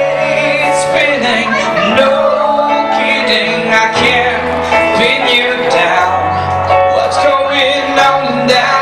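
Live song: a male singer sings into a microphone over keyboard accompaniment, with held low bass notes that change every second or two.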